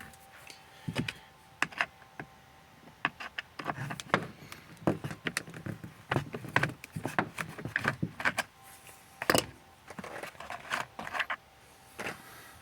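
Irregular clicks, knocks and rattles of hand work in a car's rear parcel shelf as the T20 screws come out and the rear deck speaker is lifted from its mount.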